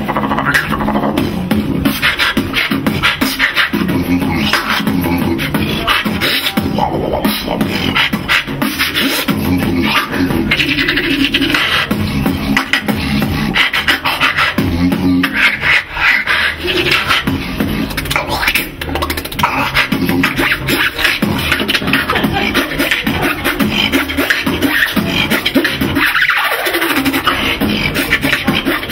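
Solo human beatboxing: a man's mouth-made drum hits in a fast, steady rhythm over hummed bass notes, with a falling vocal sweep near the end.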